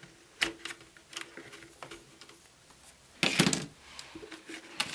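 Small clicks and taps of electric kettle parts being handled and fitted during reassembly, with a louder rustling scrape a little over three seconds in.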